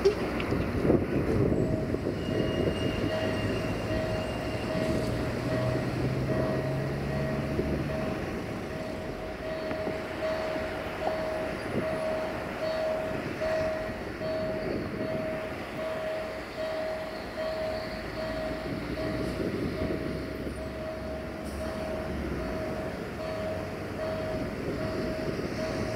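Level-crossing warning signal sounding a single repeated tone, about one and a half strokes a second, over the low rumble of an approaching 060-DA (LDE2100) diesel-electric locomotive hauling a loaded freight train.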